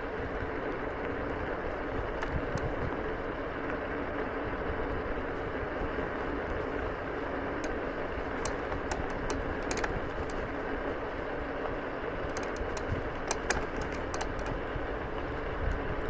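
Egret X electric scooter rolling over gravel: steady tyre rumble and road noise with scattered sharp clicks and ticks, bunched in the middle and again near the end.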